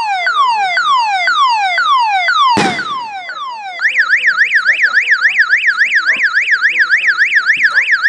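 Loud electronic siren, first sweeping downward in pitch over and over, about two to three times a second, then switching just before halfway to a fast up-and-down yelp. A single sharp bang cuts in about two and a half seconds in.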